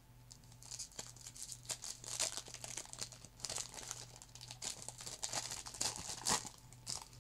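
Plastic wrapper of a hockey card pack being torn open and crinkled: a run of irregular crackling rustles, the sharpest about six seconds in.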